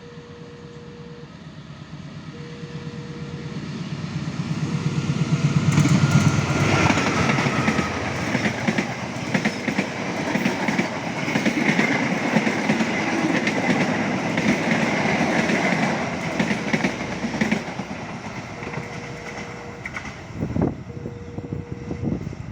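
A train approaches and passes close by, building up over the first six seconds. Its wheels clatter rapidly over the rail joints for about fourteen seconds, then ease off, with a few heavier knocks near the end. A faint steady tone switches on and off in the background.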